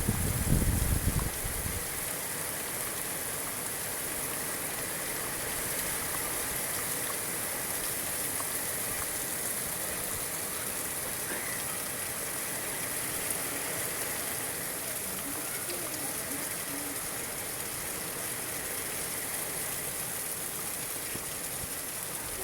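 Steady rain falling, an even hiss of rain on the ground and surfaces, with a short low rumble in the first couple of seconds.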